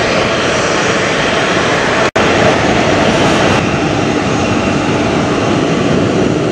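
Boeing 737-800's CFM56 jet engines running at taxi power, a steady dense rushing hum. The sound cuts out for an instant about two seconds in.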